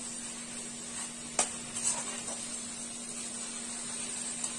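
Snake gourd sabzi frying in oil in a steel kadhai on high flame: a steady sizzling hiss, with the spatula clinking sharply against the pan about a second and a half in.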